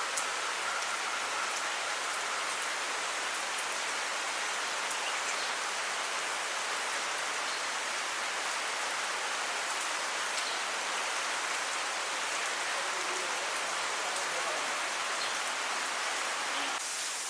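Steady, heavy monsoon rain falling and hitting surfaces, an even hiss flecked with faint drip ticks.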